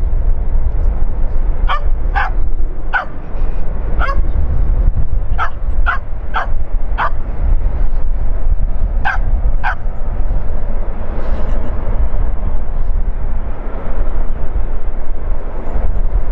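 A dog barking, about ten short barks in irregular groups that stop about ten seconds in, over a loud steady low rumble.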